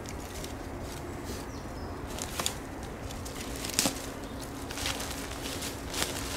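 Rustling and crackling of leaves and twigs as a person shifts on the forest floor and handles a leafy sprig, with a few sharp crackles spaced over several seconds.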